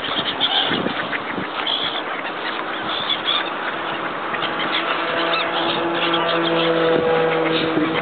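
Birds at the waterside calling in many short notes over a busy background. About five seconds in, a steady engine drone sets in and holds.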